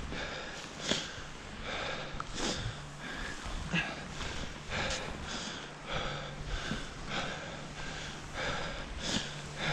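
A skier's hard, heavy breathing, a puff about once a second, as he slogs through deep powder snow, mixed with the soft crunch of skis and poles pushing through the snow.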